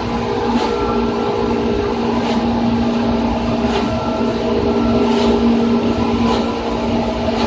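Running sound aboard a Seibu 2000 series electric train's motor car cruising: a steady traction motor and gear hum over the rumble of the wheels, with a click from the wheels passing over a rail joint every second or two.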